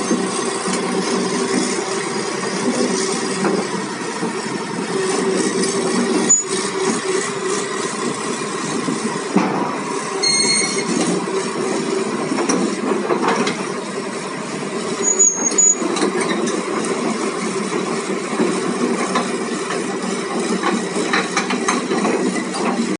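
Komatsu PC200 hydraulic excavator running, its diesel engine a steady drone with clicks and a few brief high-pitched squeaks of metal.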